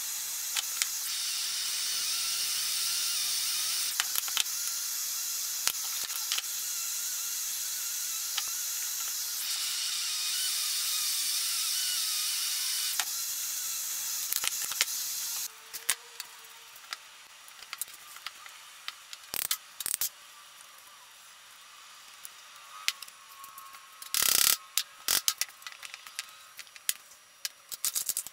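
Propane torch hissing steadily, cutting off abruptly about fifteen seconds in. Then scattered clicks and taps of copper pipe pieces being handled, with a brief loud rush of noise near the end.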